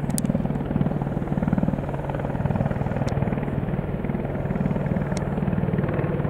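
Apache attack helicopter in flight, its rotor beating steadily with a fast even thud. The sound echoes and reverberates off the surrounding trees.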